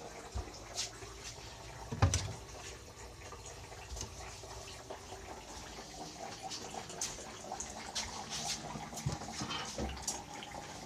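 Water running and filling a container, with one thump about two seconds in and a few light clicks and knocks.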